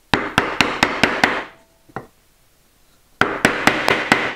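Chiselling into a wooden board: two runs of quick, sharp knocks, about five a second, with a single knock between them.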